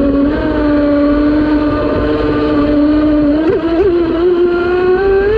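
Electric RC speedboat's brushless motor (Leopard 4074, 2200 kV, on 6S) whining at part throttle with a steady, lower pitch, over a rush of water and wind. The pitch wobbles briefly twice past the middle, then climbs near the end as the boat speeds up again.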